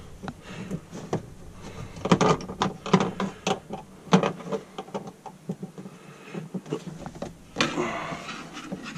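Small screwdrivers prying at plastic push-in clips in a Polaris RZR's plastic body panel: scattered clicks, taps and scrapes of metal on plastic, thickest from about two to four seconds in.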